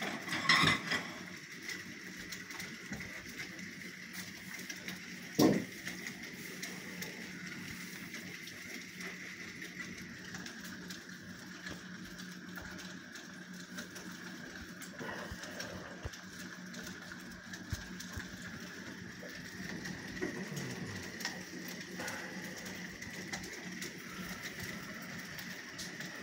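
Steady patter of rain and small hail falling on slate roofs, with two short, louder sounds: one about half a second in and a sharper one about five seconds in.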